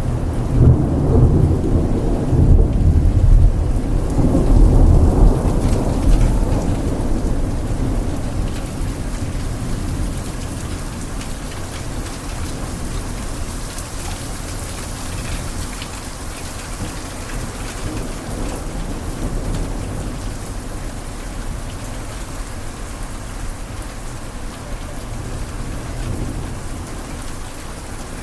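Heavy rain falling steadily, with a long rolling rumble of thunder through the first several seconds that dies away, leaving the rain alone.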